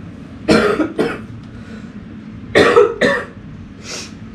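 Coughing: two quick double coughs about two seconds apart, then a fainter single cough-like sound near the end.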